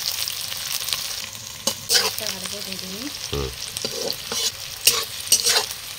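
Sliced onions frying in hot oil in a kadai, sizzling steadily while a spatula stirs and scrapes the pan every second or so: the onions are being browned (kosha) as the base of a chicken curry.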